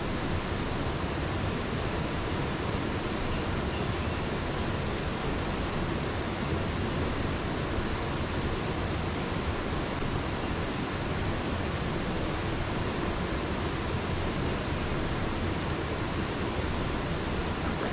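Steady, even rushing noise that does not change.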